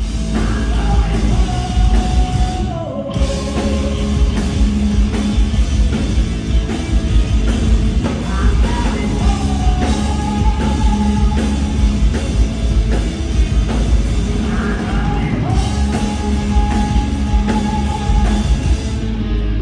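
Heavy metal band playing live, loud, with drums and heavy low end under sung vocals that hold long notes.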